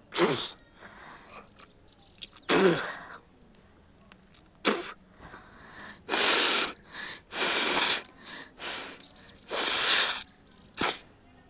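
A woman sneezing and blowing hard through her nose: about eight sharp bursts of breath, the first two with a voiced falling edge, the later ones longer and breathier.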